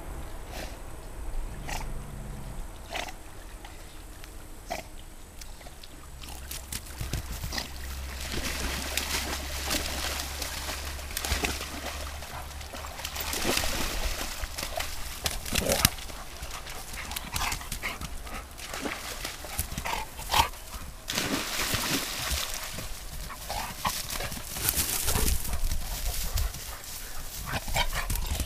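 Yellow Labrador retrievers splashing through shallow water and scrambling up a muddy bank, with dog noises among the splashing. The first few seconds are quieter, with a low rumble and a few clicks. Busy splashing starts about six seconds in.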